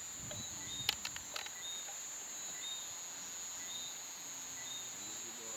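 Night insects by a river: a steady high-pitched insect trill with a short chirp repeating about once a second. A few sharp clicks sound about a second in.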